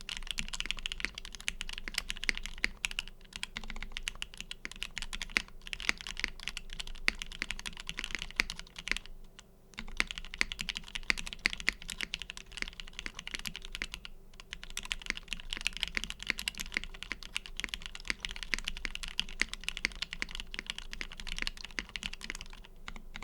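Typing on a Duck Unicorn x Legend mechanical keyboard with lubed Gateron Ink linear switches, an FR4 plate and JTK keycaps: a dense, rapid run of key clacks, broken by a few short pauses, the longest about nine seconds in.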